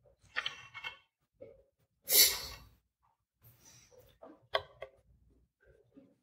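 Quiet pause in a courtroom: a short rustle about two seconds in, then a few small clicks and knocks from handling at the stand.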